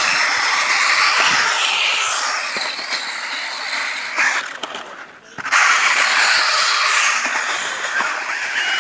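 A 1/18-scale RC stadium truck's electric motor and gear drive whining, rising and falling in pitch with the throttle. It drops away briefly about halfway through, then picks up again.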